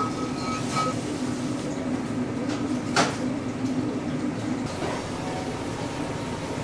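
Restaurant room tone: a steady low hum, with a few light clinks of tableware. The sharpest clink comes about three seconds in.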